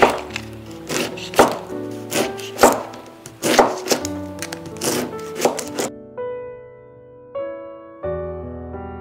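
Kitchen knife slicing an onion into thin strips on a cutting board: a series of chops, about two a second, over background music. The chopping stops about six seconds in, leaving only the music.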